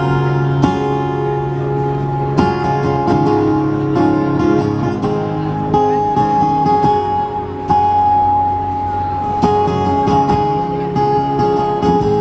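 Steel-string acoustic guitar strumming slow chords, new strokes coming every second or two and the notes ringing on between them: the opening of a busker's song.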